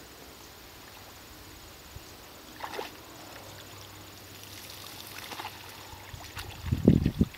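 A dog wading through shallow pond water: soft sloshing and a few splashes, with a louder run of low thumps near the end.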